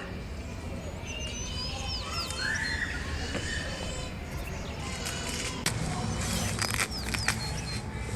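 Birds calling: a few short chirps and whistles, some sweeping down and one sweeping up, over a steady low background rumble, with a few light clicks in the second half.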